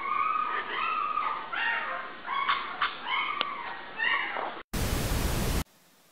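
Puppy whimpering and squeaking in its sleep: a run of high, rising-and-falling whines with a few small clicks. About four and a half seconds in it gives way to a loud burst of hiss lasting about a second, then faint room tone.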